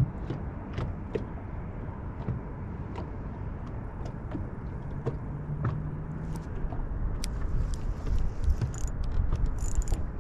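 Steady low rumble of wind and rippling water on an open boat, with scattered light clicks and ticks throughout and a brief low hum about five seconds in.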